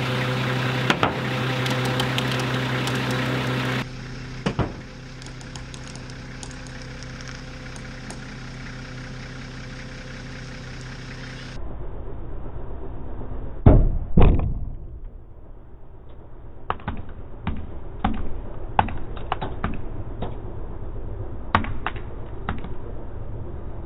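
A machine's engine idling steadily, then knocks and clicks from the zip-tie-strapped car as it is lifted: two loud thuds close together about halfway through, followed by many scattered sharp clicks and ticks.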